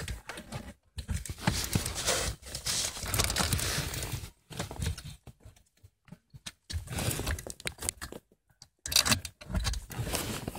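Irregular rustling, scraping and clicking of plastic parts being handled and shifted, in several stretches broken by short gaps.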